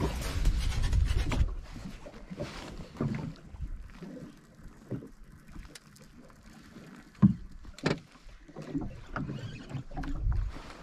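Background music ends about a second and a half in. Then water slaps and sloshes irregularly against a small boat's hull at sea, with two sharp knocks half a second apart in the second half.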